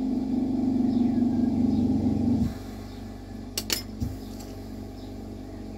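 A steady mechanical hum that cuts off abruptly about two and a half seconds in, followed by a couple of light clicks and a low knock.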